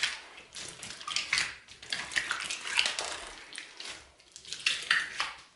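A large clear slime full of gems and trapped air bubbles being pressed and squished by hand: irregular wet squelching with crackling pops and clicks, coming in short bursts.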